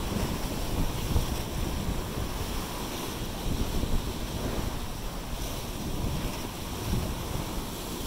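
Pacific surf breaking and washing around basalt rocks: a steady rush of foaming water that swells and eases.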